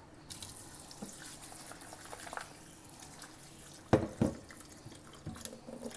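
Kitchen tap turned on about a third of a second in, its water running steadily into a bowl of salted fish bones in a stainless steel sink to rinse the salt out. Two sharp knocks come about four seconds in.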